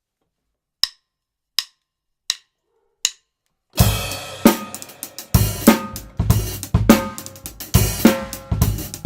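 Four evenly spaced stick clicks count in, then a Tama Swingstar drum kit with Remo heads and Meinl cymbals starts playing about four seconds in, recorded on a Blue Yeti microphone: an opening cymbal crash with bass drum, then a steady groove of bass drum, snare and hi-hat.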